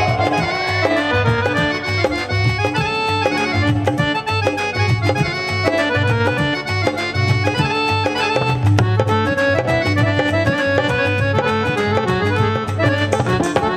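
Live band instrumental interlude without singing: a fast melody of short notes over a steady low beat, played by a band with keyboards and electric guitar.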